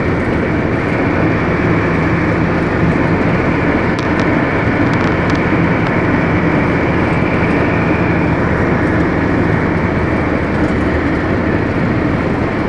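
Steady engine hum and road noise of a vehicle driving along a mountain road, with a few light ticks about four to five seconds in.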